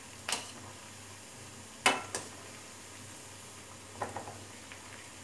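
Vadai deep-frying in hot oil in a steel kadai, sizzling steadily, with a few sharp clinks of a metal spoon against the pan as they are turned, the loudest just under two seconds in.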